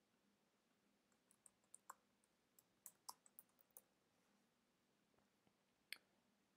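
Faint keystrokes on a computer keyboard: a scattered handful of light clicks between about one and a half and four seconds in, then a single click near the end.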